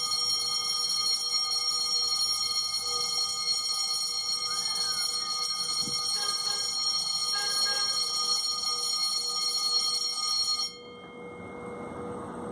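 Electronic level-crossing warning alarm sounding a steady, shrill ringing tone, which stops abruptly about eleven seconds in.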